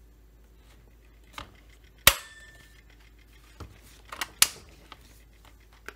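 Chain brake of a FarmerTec Holzfforma G660 chainsaw being snapped on and released: a series of sharp metallic clicks, the two loudest about two seconds in and about four and a half seconds in. The brake sounds like it works.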